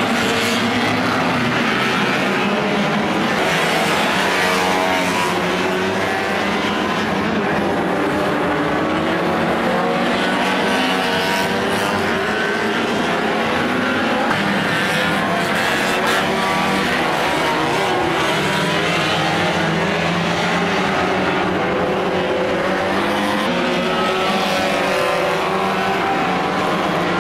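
Several 1500cc banger-racing cars' small engines revving hard together, their pitches rising and falling as the drivers race and slide round the track, with tyres squealing as they spin.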